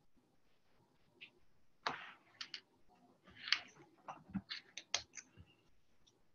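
Faint, irregular clicks and taps of typing on a computer keyboard, about a dozen between two and five and a half seconds in.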